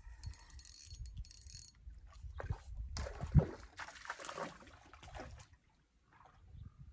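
Spinning fishing reel being cranked near the start, over a low wind rumble on the microphone. From about three seconds in there is rustling handling noise, with one sharp thump around three and a half seconds in.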